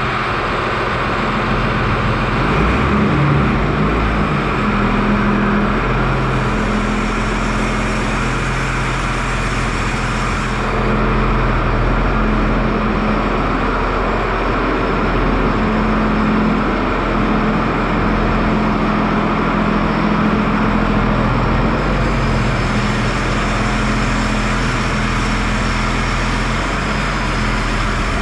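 Farm tractor engine running steadily while the machine is moved, a continuous loud drone with small shifts in tone a few times.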